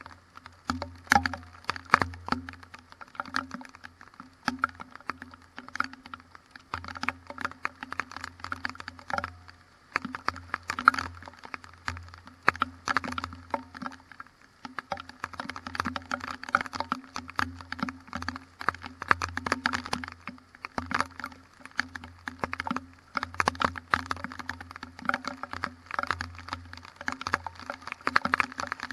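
Raindrops from a windy thunderstorm hitting close to the microphone, a dense, irregular patter of sharp ticks, with a faint low hum underneath.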